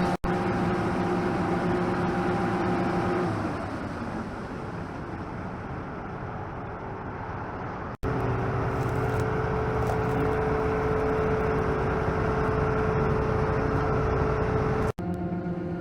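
Farm machinery's diesel engine running with a steady hum. It eases off and quietens about three seconds in, then breaks off abruptly twice, each time coming back on a different steady note.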